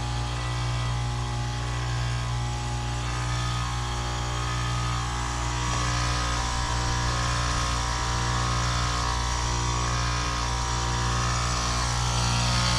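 2012 Lennox Merit heat pump outdoor unit running in its defrost cycle: a steady compressor hum under a hiss that grows stronger in the second half.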